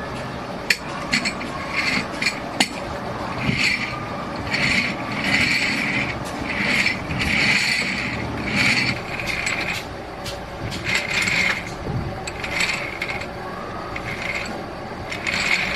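Metal being worked in a workshop: a run of rasping mechanical strokes, each about half a second to a second long, with a few sharp clicks in the first three seconds.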